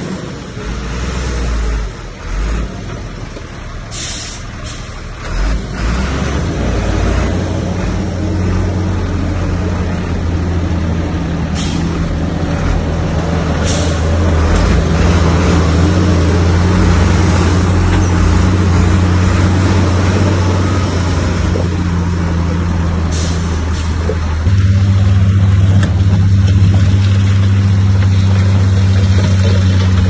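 Heavy diesel engine of earthmoving machinery running steadily under load, its note stepping up and growing louder about 24 seconds in. A few short hisses of air break through it along the way.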